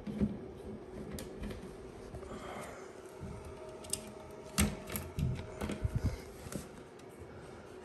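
Scattered light clicks and taps, with a cluster of dull bumps a little past the middle: handling noise from hands and probe leads working among the wires inside an opened AV receiver.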